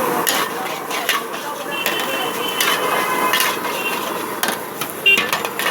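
Busy street noise with a steady background hum, broken by several sharp knocks and clinks at irregular moments, and a couple of short beeps.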